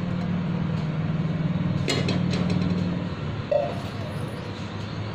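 Steady low machine hum, with a single sharp click about two seconds in.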